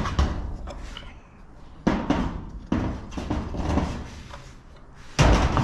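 About four sudden clunks, the last the loudest, with rattling and handling noise between: an object being knocked and moved about while being set in place during work on a motorcycle.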